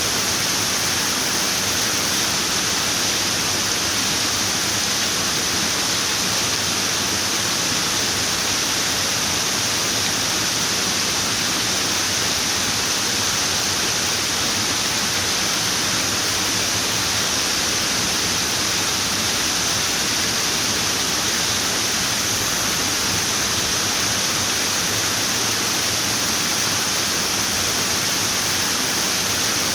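Running water pouring steadily, an even, unbroken hiss with no change in level.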